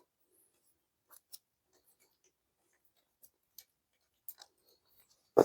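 Faint, scattered clicks and taps of small hardware being handled while a bolt is threaded back in, with a louder knock right at the end.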